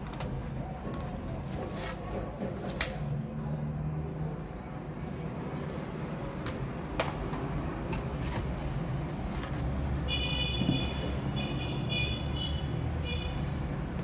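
Light clicks and taps from handling the MacBook Pro's aluminium bottom case as it is lifted off, over a steady low background rumble. Near the end a high-pitched tone comes and goes several times.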